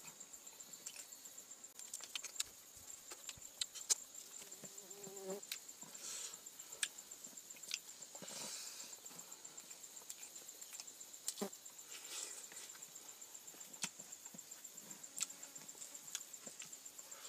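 Close-up eating sounds from a man eating rice and fish by hand: scattered wet clicks and smacks of chewing and of fingers in the food. Behind them a steady, high-pitched, fluttering insect trill runs on without a break.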